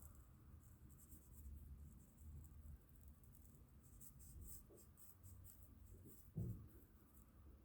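Faint scratchy strokes of coloring on paper, repeated in quick runs, with a soft low thump late on.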